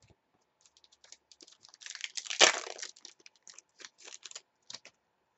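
Foil wrapper of a trading card pack crinkling and being torn open by hand: a dense run of crackles, loudest about halfway through.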